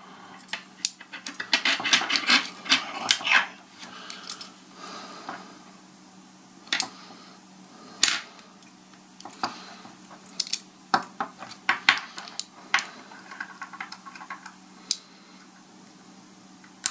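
Small metal hand tools clicking and scraping against the stainless steel case and parts of an opened Apple Watch while prying out a display connector. Irregular sharp ticks and clinks come thickest in the first few seconds and again about two-thirds of the way through.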